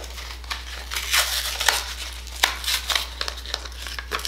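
Crinkling, rustling and tearing of a new mascara's retail packaging and paper backing card as it is pulled open, a run of irregular sharp crackles.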